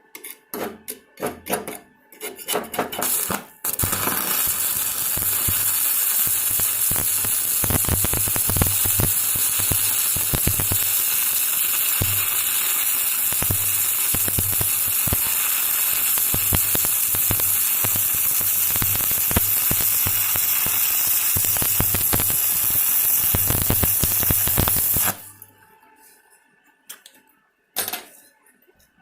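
Stick (MMA) welding arc from an SWP Digi MIG 200 inverter welder. A few short sputters come first, then a steady crackling hiss from about four seconds in, running for about twenty seconds before it cuts off abruptly.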